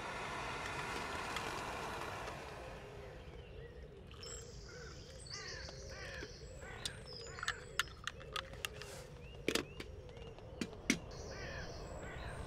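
Birds calling and singing at dawn, short chirps and a higher warbling song, after a steady rushing sound that stops about two seconds in. Several sharp clicks come in the second half and are the loudest sounds.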